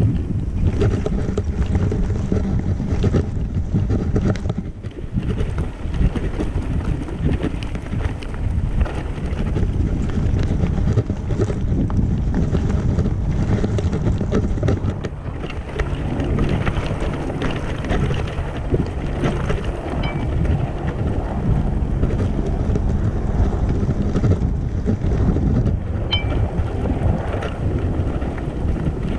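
Wind buffeting the microphone, with the low rumble of a wheelchair fitted with an electric handbike attachment riding over a rough grass path.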